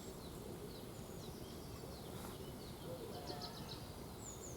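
Small birds chirping faintly: short, quick high chirps scattered through, with a cluster a little after three seconds in and again near the end, over a low steady background hiss.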